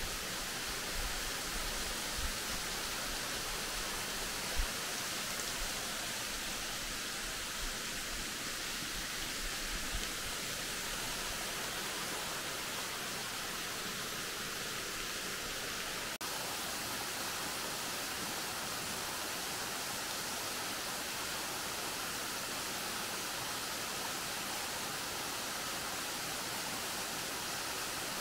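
A steady, even rushing noise, with a few low thumps in the first ten seconds, the clearest about four and a half seconds in.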